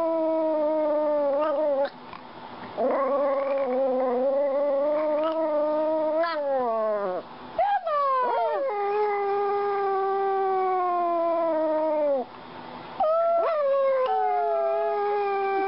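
A small long-haired dog howling. It gives about four long drawn-out howls, each held for a few seconds and sliding down in pitch as it ends, with a few short yelping cries between them about eight seconds in.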